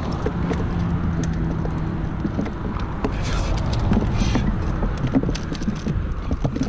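Clicks, taps and gravel scraping as hands scoop finger mullet off a gravel shore and drop them into a foam cooler, with two brief rustles around the middle. Under it runs a steady low rumble, with a low hum for a couple of seconds near the start.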